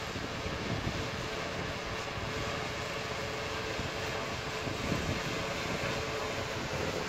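Large-scale radio-controlled Cessna model's engine and propeller running at a steady pitch as the model taxis on grass.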